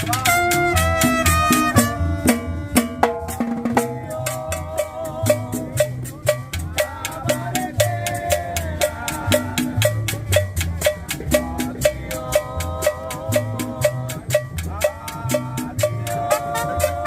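A tropical dance band playing: a steady beat of cowbell and drum strikes over a bass line, with sustained melody lines on top.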